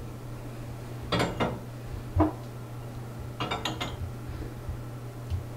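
Ceramic dishes and drinking glasses clinking and knocking against a countertop dishwasher's wire rack as they are loaded: a couple of knocks about a second in, one about two seconds in, and a quick cluster around three and a half seconds.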